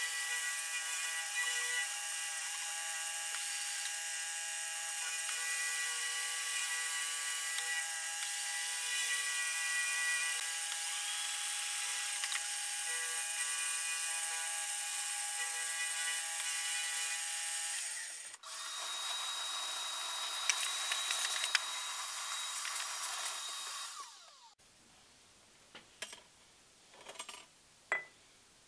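Vertical milling machine with an end mill facing a rough-cast bearing block, a steady high-pitched machining sound made of many tones. About 18 s in it breaks off briefly and resumes with a different tone, then about 24 s in it stops abruptly, leaving a few small knocks as the machined part is handled.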